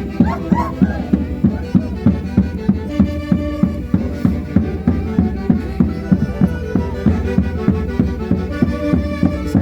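Live Andean folk orchestra playing a Santiago tune: held melody notes over a steady drumbeat of about three strokes a second.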